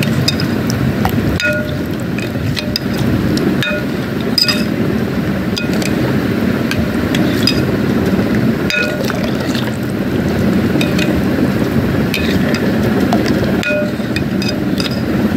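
A spoon beating thick yogurt and cream in a bowl: a steady wet churning swish, with the spoon clinking against the bowl's side at irregular moments, several times a few seconds apart.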